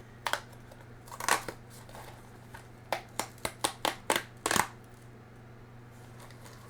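Plastic snack wrapper being torn open and handled: a run of short, sharp crinkles and crackles, most of them close together between about three and four and a half seconds in.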